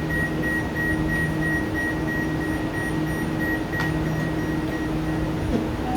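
Door warning beeps on an Amtrak NextGen Acela (Alstom) train: a rapid series of high electronic beeps, about four a second, that stops about five seconds in, over the train's steady low hum.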